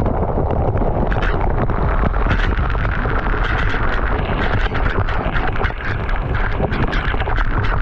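Waterfall crashing into its pool, heard up close: a loud, steady rush with constant spattering and a deep rumble underneath.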